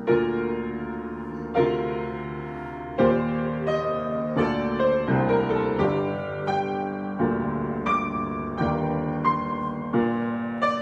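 Solo piano improvisation: full chords struck about every second and a half, each left to ring and fade, then from about three seconds in a quicker melodic line of single notes over held bass notes.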